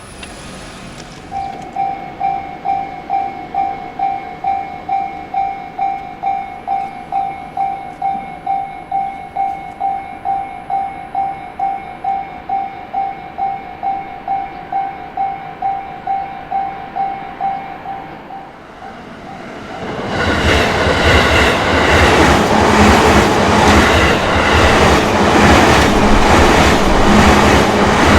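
Japanese level-crossing warning bell ringing at a steady clang of about two strikes a second. After about 19 seconds a train passes close by, loud, its wheels clacking over the rail joints and drowning out the bell.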